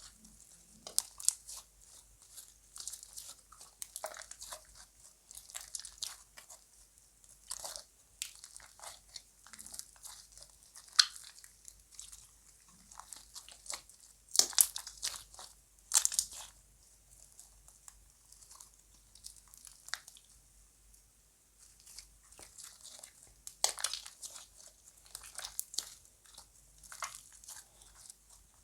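Slime being mixed and squeezed by hand, making irregular sticky crackles and crunches, with a few louder crackles about halfway through.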